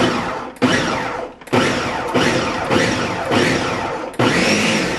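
Countertop blender pulsed in short bursts, its blades chopping boiled chicken breasts into shreds. Each pulse starts abruptly and fades as the motor is released, several times over.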